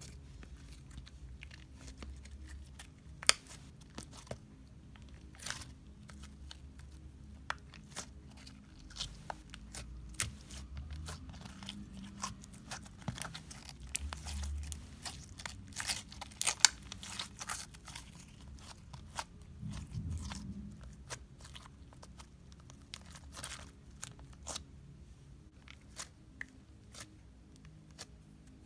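Confetti slime being squished and worked by hand, making dense, irregular crackling clicks and pops.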